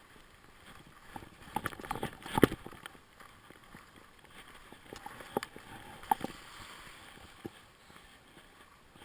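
Snowboard sliding and scraping over packed snow, with a cluster of sharp knocks and scrapes about one to two and a half seconds in and a few more later.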